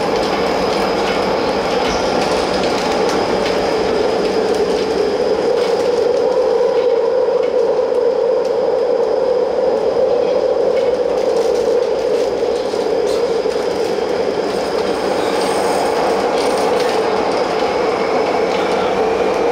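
Taoyuan Airport MRT commuter train running on its rails: a steady rumble of wheels on track, with a faint steady high whine and occasional light clicks.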